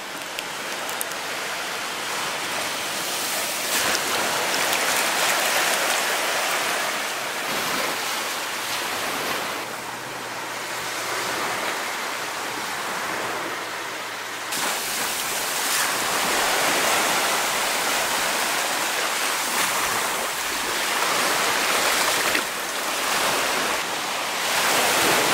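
Surf washing onto a sandy beach: a steady rush of waves that swells and eases every few seconds.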